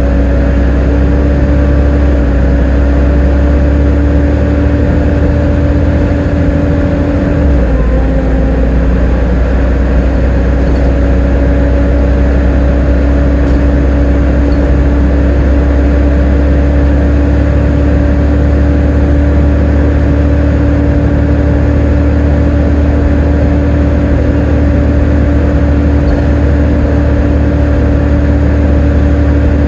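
Volvo B7TL double-deck bus running, its engine and driveline giving a loud, steady hoover-like whine over a low rumble, with a brief dip in pitch about eight seconds in.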